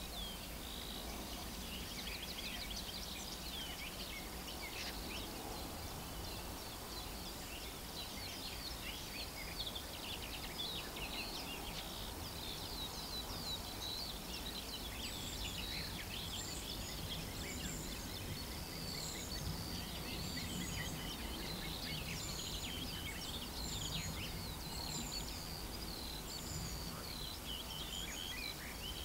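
Reed-bed warblers singing a fast, scratchy, chattering song, over a steady low background rumble. From about halfway in, a short high note repeats roughly once a second.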